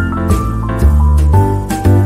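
Instrumental background music with a steady beat, a bass line and melody notes.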